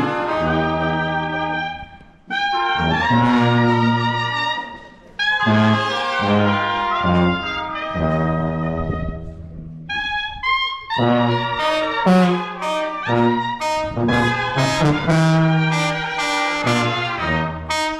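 Brass band with a sousaphone playing a tune, the bass line clear under the higher brass. The music breaks off briefly about two and five seconds in.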